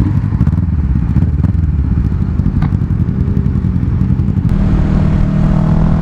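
Kawasaki Ninja 650's parallel-twin engine running under the rider, heard from the seat with a rough, buffeting rumble on the microphone. About four and a half seconds in the engine note settles into a steady, even tone, as at a constant cruising speed.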